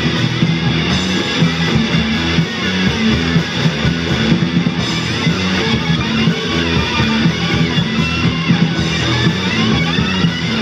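A rock band playing loudly and continuously: electric guitar, electric bass and a drum kit together in a dense wall of sound, with sliding guitar notes in the second half.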